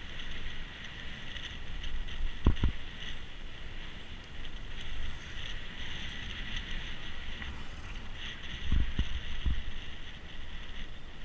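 Mountain bike rolling over a rough off-road track: a low rumble of wind and tyre noise under a steady high hiss, with sharp knocks from bumps about two and a half seconds in and again near the end.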